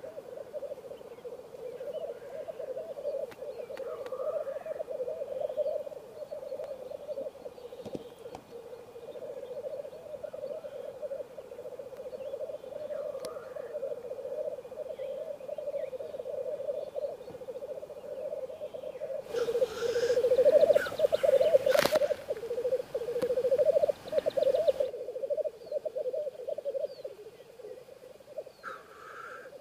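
Male black grouse lekking, their continuous low bubbling rookooing song running without a break, with a few brief higher calls here and there. A louder stretch of rushing noise covers several seconds past the middle.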